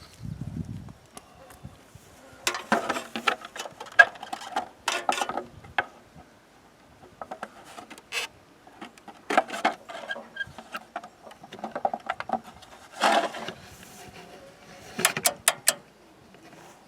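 Off-road wrecker's front winch solenoid clicking in several short bursts as the winch is worked from its remote controller, while the winch motor does not turn. The owner takes this for a failed solenoid, the reason the winch will not spool in.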